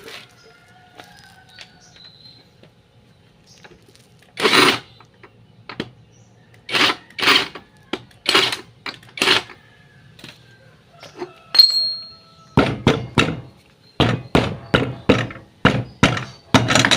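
Hammer blows on metal while replacing the front wheel bearings of a Piaggio Ape three-wheeler: a few separate heavy blows, one leaving a short high ring, then a quick run of blows about two to three a second near the end.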